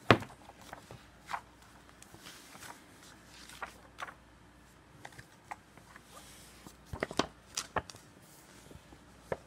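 A board-game rulebook being handled and its pages turned: scattered short paper rustles and light taps. A sharper tap comes right at the start and a quick cluster about seven seconds in.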